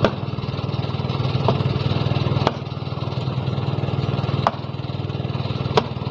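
A small engine running steadily at idle, with a fast, even pulse, and a few sharp clicks of pipe being handled over it.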